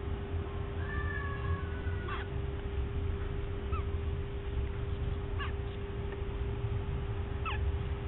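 Newly hatching Eclectus parrot chick peeping: a thin, held squeak about a second in, then four short high chirps spaced a second and a half to two seconds apart, over a steady low hum.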